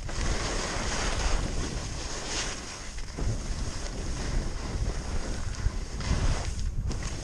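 Wind buffeting the microphone as a skier descends, mixed with skis hissing and scraping over chopped-up spring snow; the noise swells and eases with the turns, dipping briefly about three seconds in and again near the end.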